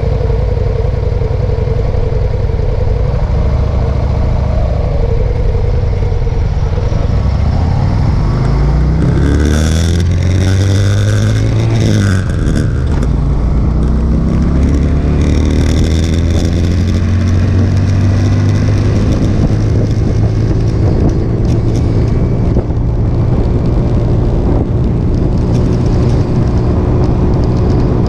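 Motorcycle engine idling steadily, then revving up as the bike pulls away about eight seconds in, rising in pitch through the gears, and settling into a steady cruise.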